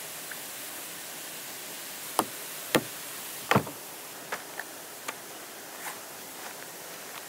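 Steady rushing hiss of a waterfall, with knocks and clacks of camping gear being set down and handled on a wooden bench: three sharp knocks about two to three and a half seconds in, then a few lighter taps.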